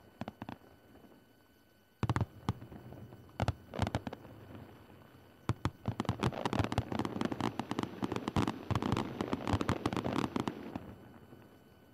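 Fireworks going off: a few scattered pops, then about two seconds in a run of sharp bangs that thickens into dense, rapid crackling for several seconds before dying away near the end.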